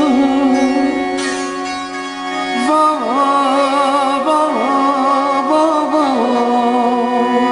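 Background music in a South Asian style: a plucked string melody with bending, ornamented notes over a steady drone.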